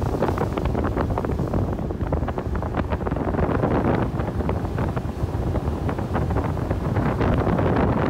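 Bass boat running across a lake under its outboard motor, with wind buffeting the microphone in irregular gusts over a steady low rumble.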